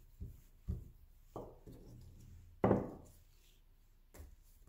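A wooden rolling pin working flatbread dough on a tabletop: a series of dull wooden knocks and thumps, the loudest about two and a half seconds in.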